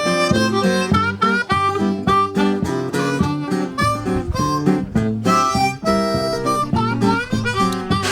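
Background music: harmonica playing a quick run of notes over an acoustic guitar accompaniment, in a blues style.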